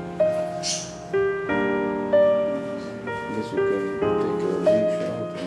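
Background piano music: slow, gentle single notes struck one after another, each ringing and fading before the next.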